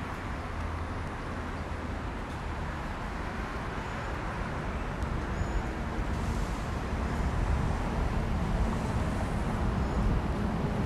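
Outdoor street noise of road traffic and wind, a steady rumble that grows gradually louder over the second half.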